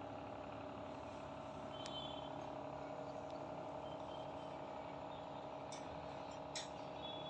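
A steady mechanical drone, like a nearby engine or motor running, with a few brief faint high chirps and two sharp clicks near the end.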